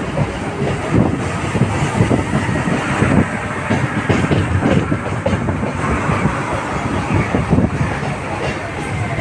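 Indian Railways passenger train of LHB coaches, hauled by an electric locomotive, passing close by, its wheels clattering with many knocks over rail joints and points.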